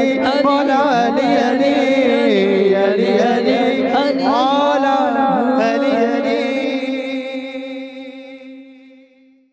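Male voice singing an Urdu devotional manqabat in praise of Ali, with wavering, drawn-out melodic lines over a steady held drone. From about six seconds in, it fades out to almost nothing by the end.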